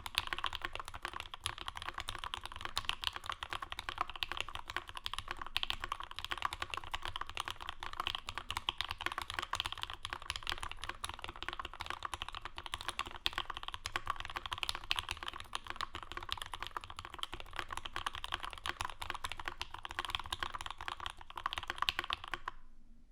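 Continuous typing on a custom mechanical keyboard: a Dixie Mech Bauer aluminium case with an aluminium plate, Krytox-lubed H1 linear switches, no dampening and GMK doubleshot ABS keycaps, giving a dense run of key strokes. The typing stops just before the end.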